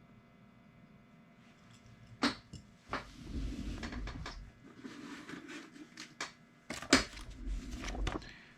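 Objects being handled on a workbench: a few sharp knocks and clicks, the loudest near the end, with rustling and a low rumble between them.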